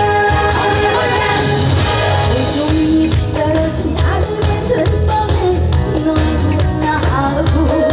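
Loud live band music with a steady beat and cymbal strokes, with singing over it: a trot song played through the stage sound system.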